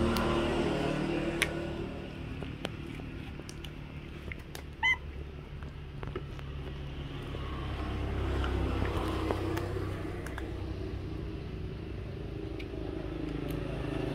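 Passing road traffic: a low engine hum that swells at the start and again about eight seconds in, as vehicles go by. Scattered small clicks, and one short high-pitched squeak about five seconds in.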